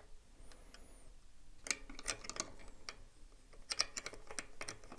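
Light metallic clicks and taps of hand tools working on bicycle cantilever brake hardware, in two short bursts about two and four seconds in.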